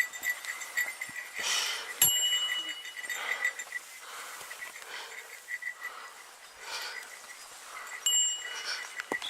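A small metal bell jingling steadily in a quick rhythm, ringing out clearly twice, about two seconds in and near the end.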